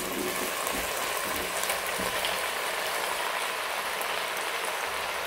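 Pan of stir-fried chicken and vegetables sizzling steadily as boiled macaroni is tipped in from a plastic strainer, with a few faint soft clicks.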